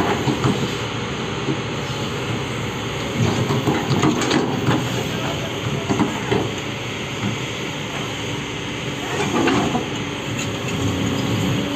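Heavy machinery running steadily, with rattling and clanking over a low engine rumble.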